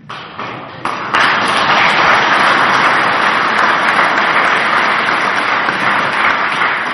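Audience applauding: the clapping builds within the first second, then holds steady and dense before dying away as speech resumes.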